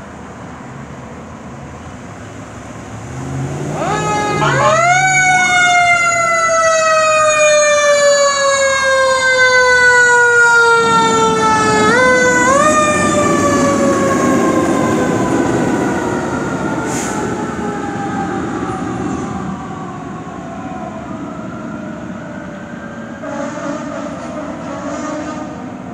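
Fire engine siren wailing as the truck pulls out. The pitch rises quickly about four seconds in and slowly slides down, then rises again about twelve seconds in and winds down slowly, fading near the end. The fire truck's engine rumbles underneath.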